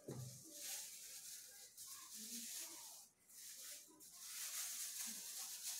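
Thin clear plastic disposable gloves rustling and crinkling as they are pulled onto the hands, in several short rustles.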